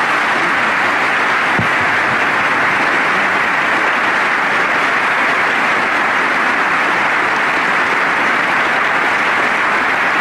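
A large audience applauding steadily, a dense, even clapping with no break.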